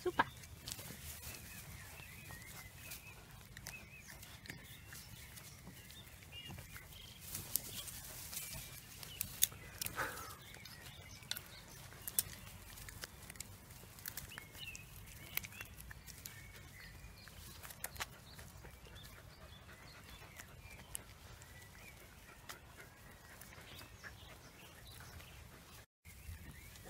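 Cavalier King Charles Spaniel puppies playing: faint scuffling with scattered small clicks and knocks, and a few brief high squeaks.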